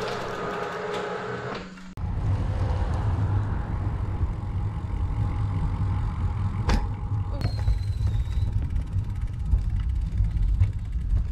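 Wind buffeting the microphone of a camera on a moving bicycle, with road rumble: a loud, steady low rumble. Before it, a steady hum of several tones cuts off suddenly about two seconds in.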